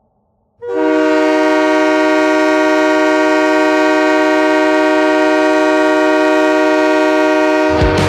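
Hockey arena goal horn sounding one long, steady blast of several pitches together, heard dry without added reverb. A rock song (the goal song) breaks in just before the horn ends.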